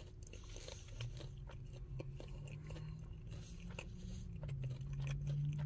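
A person chewing a mouthful of soft, cheesy bread puff close to the microphone: small wet clicks and smacks of the mouth, with a low steady hum underneath from about a second in.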